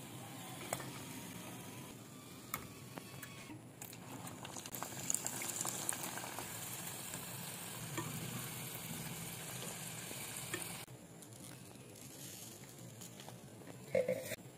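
Sesame-coated pastry pockets deep-frying in hot oil in a pan: a steady sizzle with a few light clicks. The sizzle cuts off abruptly about eleven seconds in.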